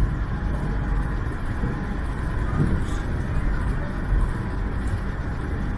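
CRRC/Bombardier Innovia Monorail 300 train running steadily between stations: an even rumble from its rubber tyres and drive on the concrete guideway.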